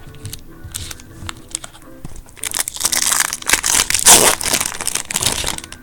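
Wrapper of a baseball card pack being crinkled and torn open, with a few small clicks of cards being handled first and then a dense crinkling that lasts about three seconds.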